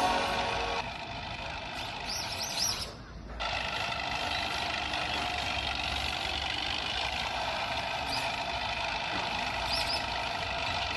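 Music fades out in the first second, leaving a steady outdoor background hiss with a few short, high bird chirps, once near the start and again near the end.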